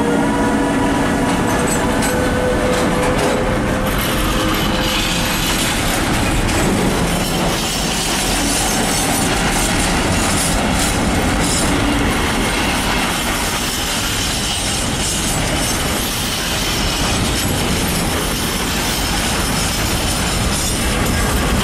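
Container freight train hauled by an E.484 Traxx electric locomotive rolling through: steady tones from the locomotive fade out over the first few seconds. The wagons' wheels keep up a loud, even rolling noise, with scattered clicks from the rail joints.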